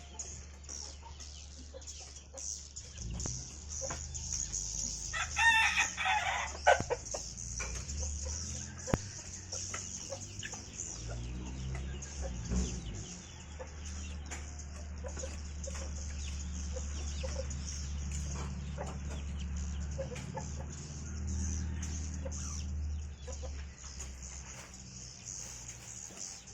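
Swiftlets chirping in a swiftlet house: a dense, continuous high twittering. A rooster crows once about five seconds in, over a steady low hum.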